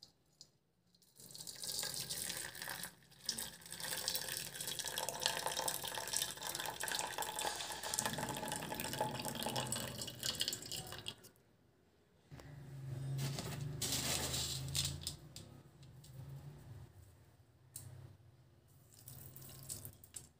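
Liquid poured in a stream from a steel vessel into a steel bowl, splashing and trickling as the bowl fills. The pour runs for about ten seconds, breaks off briefly, then goes on again for a few seconds and tapers away.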